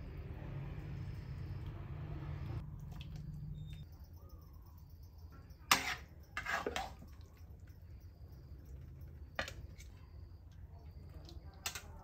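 Metal tongs clinking and scraping against a wok as food is lifted out, with soft handling noise at first, then a few sharp clinks about halfway and one near the end, over a low steady hum.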